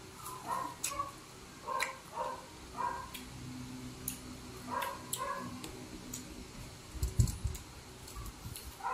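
Close-up mouth sounds of people eating ripe apple mango slices: irregular soft, wet chewing and lip smacks with small clicks, and a dull low thump about seven seconds in.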